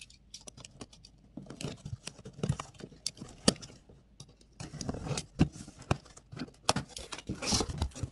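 A plastic box cutter slicing packing tape on a cardboard box, then the box being opened and the bubble-wrap packing inside handled: a run of small scratches, clicks and crinkles that gets busier about five seconds in.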